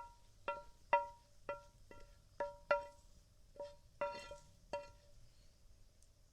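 Repeated light clinks, about a dozen in five seconds at uneven spacing: a hard utensil striking a small ringing vessel, each strike giving the same short ring.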